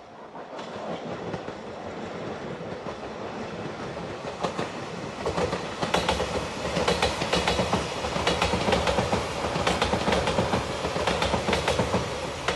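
Shiokaze limited express electric train approaching and passing: a rumble that grows louder, then a quick run of wheel clicks over the rail joints from about five seconds in.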